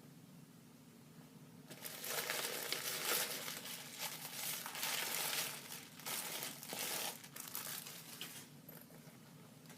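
Packaging crinkling and rustling as it is handled. It starts about two seconds in and dies down near the end.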